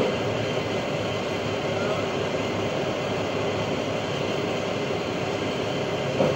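A garbage truck's engine running steadily while the truck stands still, a constant mechanical drone, with a brief knock near the end.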